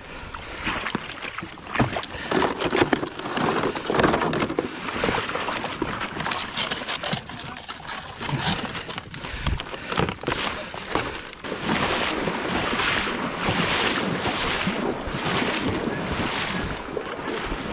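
Irregular knocks and scraping, then in the second half a kayak paddle dipping and splashing in river water in a steady rhythm, a stroke a little under every second.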